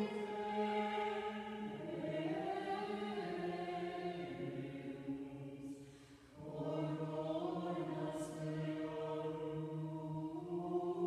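Choir singing slow, held chant notes, the pitch moving in steps every couple of seconds, with a short break about six seconds in before the voices come back in.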